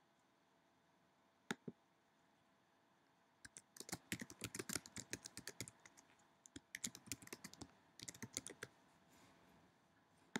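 Typing on a computer keyboard: a couple of lone key presses about a second and a half in, then three quick runs of keystrokes with short pauses between them, faint overall.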